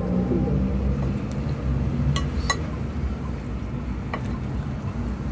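Salad being tossed with a fork and a silicone spatula in a ceramic bowl: a few light clinks of the utensil against the bowl, two close together past the middle and one more a bit later, over a steady low rumble.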